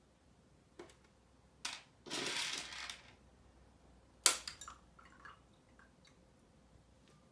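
Dried corn kernels handled and dropped into a glass jar of water: a few sharp clicks and plinks, the loudest about four seconds in with small ticks after it, and a short rattle of kernels a little after two seconds.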